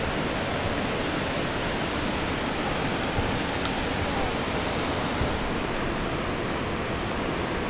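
Steady rush of water pouring through a dam's spillway gates and churning in the river below it.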